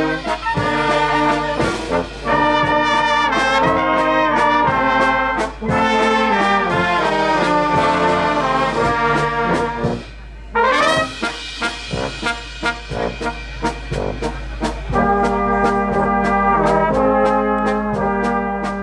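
Brass band playing a tune with trombones and trumpets over a steady beat; the band breaks off briefly about halfway, then comes back in.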